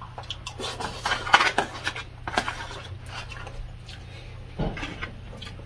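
A person eating from a plastic takeout tray: a metal spoon and fork scraping and clicking against the plastic, most often in the first couple of seconds, with chewing, and a dull knock about four and a half seconds in.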